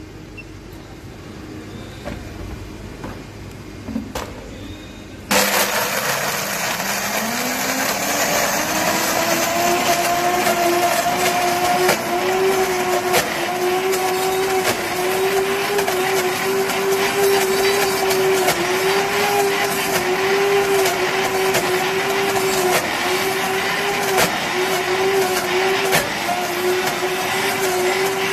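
High-speed countertop blender switched on at its top speed about five seconds in, crushing Oreo cookies into milk. The motor climbs in pitch over a few seconds, then runs steadily at full speed with a slight regular wobble.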